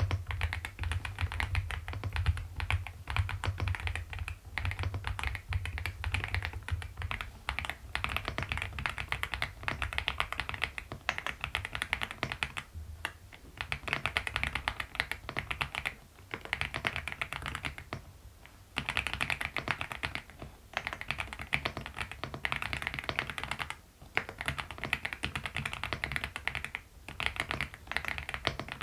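Aula F75 mechanical keyboard with Leobog Reaper linear switches and Cherry-profile keycaps being typed on quickly: continuous runs of keystrokes with brief pauses every few seconds.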